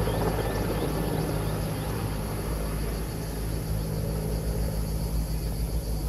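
Firefighting helicopter carrying a water bucket, heard at a distance: its rotor and engines make a steady low rumble and hum that grows gradually quieter as it flies away.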